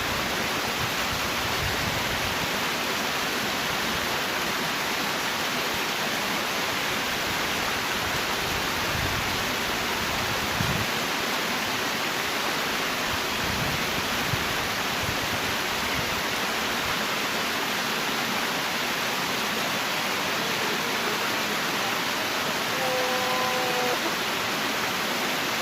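Steady rushing of river water, an even noise with no break. A brief faint pitched note sounds near the end.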